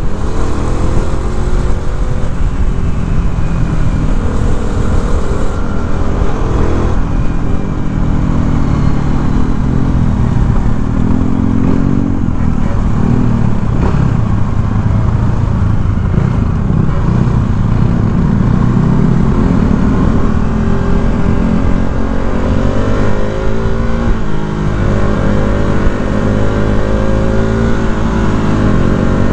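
KTM RC 390's single-cylinder engine running under way, its pitch climbing and dropping again and again as the bike accelerates, shifts and slows.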